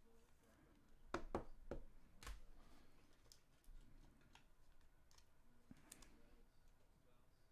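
Baseball trading cards being flipped through and handled: a few light clicks and flicks of card stock, bunched from about a second in to just past two seconds, with a softer one near the end, over near silence.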